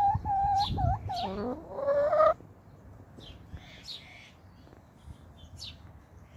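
Hens complaining: a run of four or five drawn-out, wavering calls in quick succession, the last ones swooping down and then up in pitch, for about two seconds, after which the flock goes quiet apart from a few faint soft peeps.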